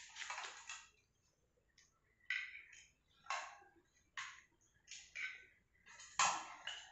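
Faint short rustles and scrapes of items being handled, about one a second, a few of them in quick pairs.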